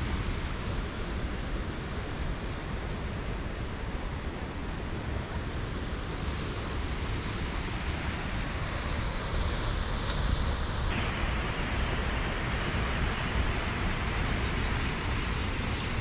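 Wind buffeting the microphone: a steady rushing noise with a rumbling, uneven low end.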